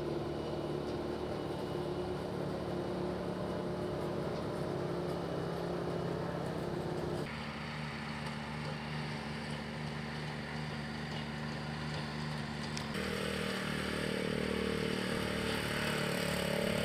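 Small vehicle engine running steadily, a quad-type machine driving across an artificial-turf pitch. The sound changes abruptly twice, about seven and thirteen seconds in.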